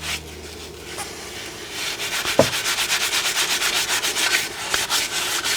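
Steel-wool soap pad (SOS pad) scrubbing a wet cast iron skillet, rapid even back-and-forth strokes that pick up about two seconds in. There is one brief knock just after that.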